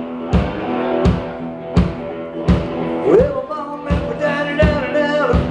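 Rock-and-roll band playing a boogie intro: drums keep a steady beat under guitar, with a note bent upward about three seconds in.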